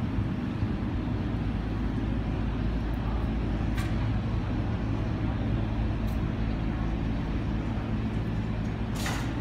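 Steady low mechanical hum of outdoor traffic, with a brief hiss near the end.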